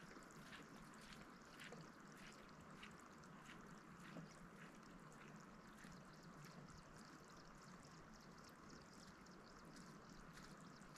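Near silence: faint outdoor ambience, a steady soft hiss with faint ticks repeating a little more often than once a second.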